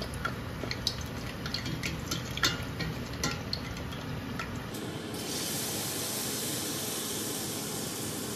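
Food deep-frying in hot oil in a stainless steel pot: sizzling with many sharp crackling pops. About five seconds in it changes to a steadier, even hiss of batter sizzling in a frying pan.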